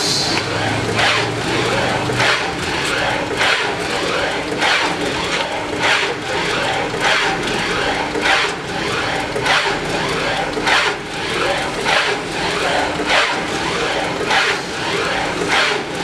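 Four-blade cashew shelling machine running: a steady mechanical din with a sharp clack roughly every two-thirds of a second.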